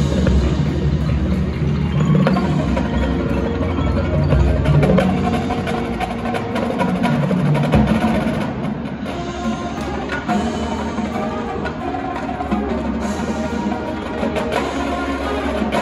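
Marching band playing a percussion-heavy passage, with rapid drum strokes and mallet percussion over the band's sustained pitched notes.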